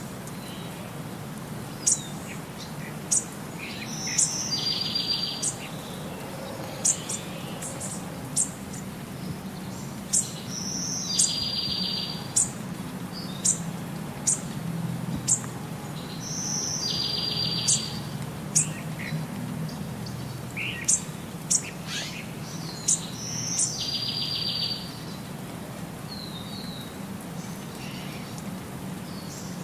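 Birdsong ambience: sharp high chirps scattered through, and a short buzzy trill that comes back about every six seconds in the same looping pattern, over a low steady hum.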